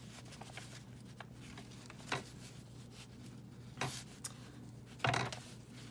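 Loose paper scraps being handled and laid on an open book page: three short rustles, the last and loudest about five seconds in, over a steady low hum.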